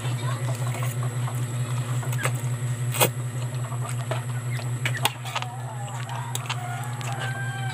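Close-up chewing and mouth sounds of someone eating spaghetti: many small wet clicks and smacks over a steady low hum, with a sharper click about three seconds in.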